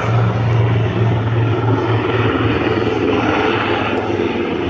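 Aircraft engine running loudly and steadily overhead, a continuous low hum with rushing noise and no change in pitch.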